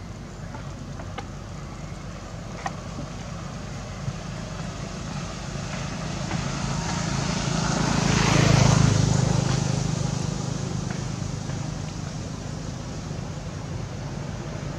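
A motor vehicle passing by, its engine sound building to a peak about halfway through and then fading away, over a steady low engine hum. There are a couple of faint clicks early on.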